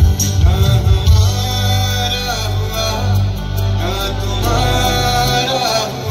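Live band music through a concert sound system: a singer over electric guitars and drums, with a heavy bass that drops out near the end.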